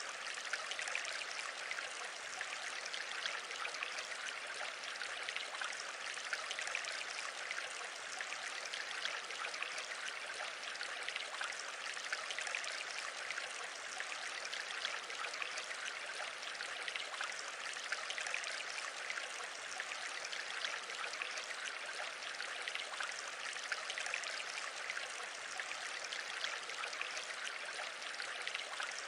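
Steady rushing hiss with a fine crackle running through it, unchanging in level.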